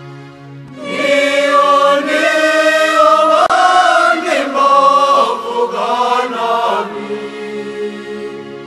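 Voices singing a Kinyarwanda Catholic hymn. A soft held chord swells into loud singing with a moving melody about a second in, then eases back to a quieter held chord near the end.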